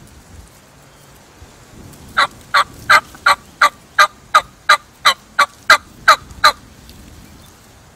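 Wild turkey yelping: a loud run of about thirteen sharp yelps, roughly three a second, starting about two seconds in and stopping shortly before the end.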